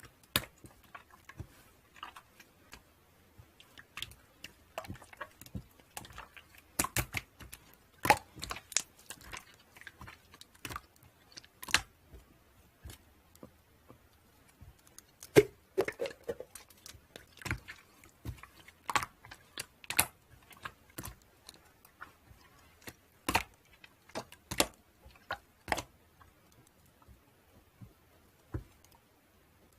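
Irregular sharp clicks and taps, one to three a second with short pauses, and a brief low squeak about halfway through.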